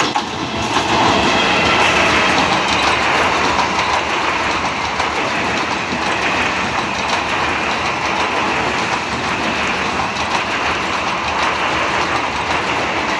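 Indian Railways EMU local train passing close at speed: a loud, steady rush of wheel-on-rail noise with rapid clicks as the coaches go by.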